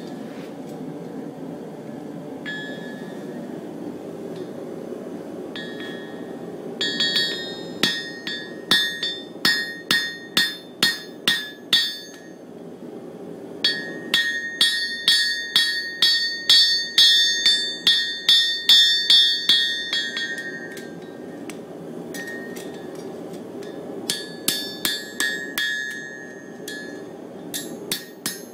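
Farrier's hammer striking a horseshoe on an anvil, each blow ringing. The blows come in runs of about two to three a second with pauses between them, over a steady low hum.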